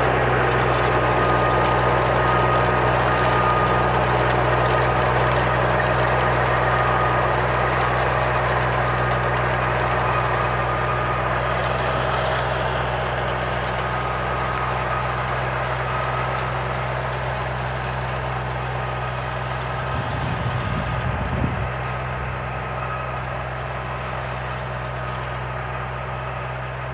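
Farm tractor engine running steadily under load as it pulls a rotary tiller forming soil beds, fading gradually as the tractor moves away.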